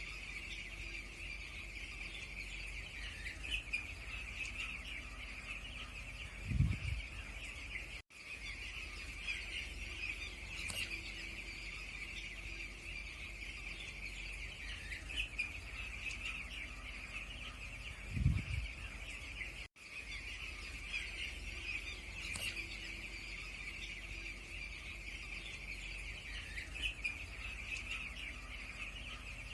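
A poultry flock chirping together in a steady, dense high chatter, with a short low thump twice. The same stretch of sound repeats as a loop, with a brief dropout at each join.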